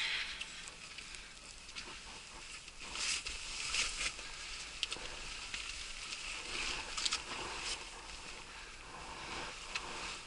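Swishing and scuffing of a waterproof orange suit and gloves as someone clambers over large weed-covered boulders, in several short bursts with a few sharp clicks of gear or hands against rock.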